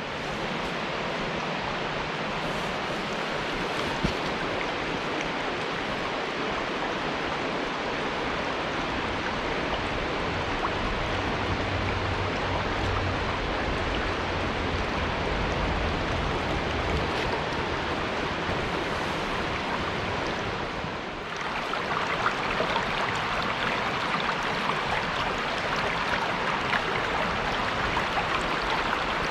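Waterfall's steady rush of falling water, an unbroken hiss; about three-quarters through it dips briefly and comes back brighter and hissier.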